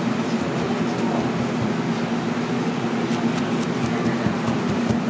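Steady low mechanical hum with a constant tone, like an engine or generator running, under a haze of street noise, with a few faint clicks.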